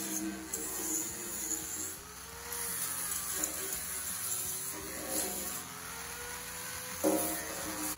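Corded angle grinder with an abrasive disc grinding down weld seams on a sheet-metal oil pan, its motor whine sagging and recovering in pitch as the disc is pressed into the metal. A short knock near the end.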